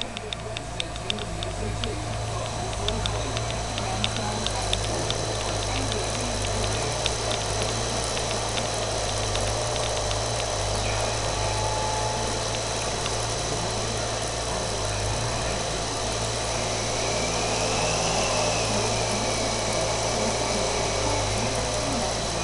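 Cincinnati No. 2 tool and cutter grinder spindle running on freshly fitted Nachi 7305 angular-contact and SKF 6305 bearings. It gives a steady motor hum with a high, even whine. Light, rapid ticking in the first several seconds dies away, and the spindle runs smoothly after that.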